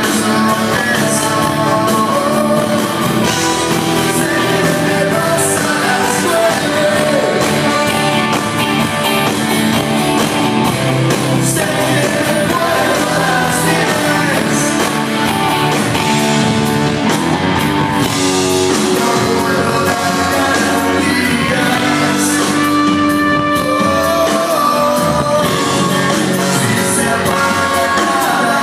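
A live rock band with a horn section playing a song at a soundcheck: trumpets and saxophone, electric guitar, keyboards and drums, with vocals.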